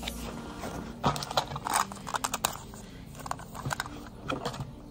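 Hands rummaging in a cardboard box and handling crinkly iridescent plastic packaging: a run of irregular sharp clicks and rustles, busiest in the first half.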